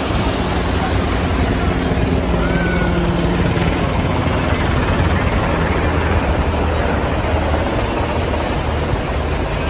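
Helicopter flying low overhead, its rotor and engines making a loud, steady low-pitched drone over a broad hiss.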